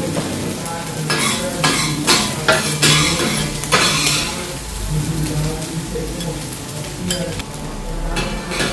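Metal spatula scraping and clanking on a hot steel flat-top griddle as fried rice is scooped off it, over the steady sizzle of fish and vegetables frying. A quick run of scrapes comes in the first half, with a few more near the end.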